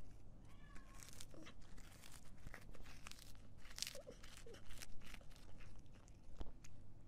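Cat chewing on a hard tan chew: a run of small, irregular crunching clicks.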